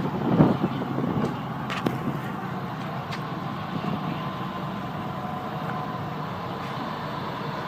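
A motor vehicle engine running steadily amid outdoor road noise, with a few brief knocks near the start.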